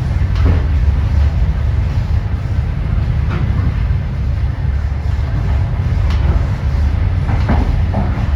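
Moving passenger train: a steady low rumble of the running gear, with a few scattered knocks as the wheels cross rail joints.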